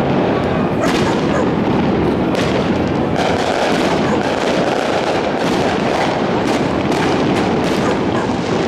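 Aerial fireworks bursting in a continuous barrage: a steady rumble of distant explosions with frequent sharp bangs and crackles on top.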